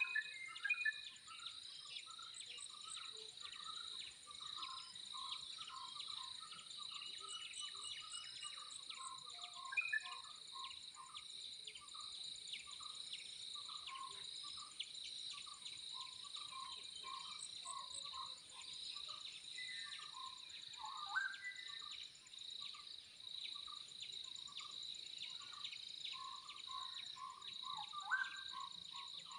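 Outdoor insect and bird chorus: a steady high-pitched insect drone runs throughout, with a long run of short repeated chirps over it and a few brighter bird calls now and then.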